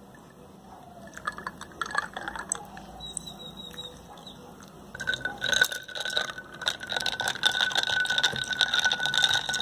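Milk poured into a tall glass of iced tea over ice cubes: liquid splashing with many small clicks from the ice, growing louder about halfway through.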